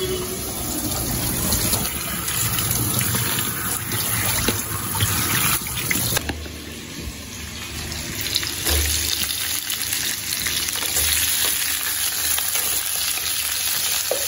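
Halved potatoes frying in hot oil in a kadai: a steady, loud sizzle, with a few knocks from the pan and spatula.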